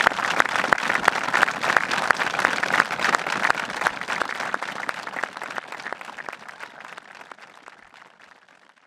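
A crowd applauding, many hands clapping densely and steadily, then fading away over the last few seconds.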